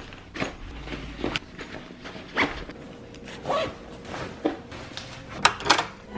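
Backpack being packed and handled: a string of short zipper pulls and fabric rustles, roughly one a second.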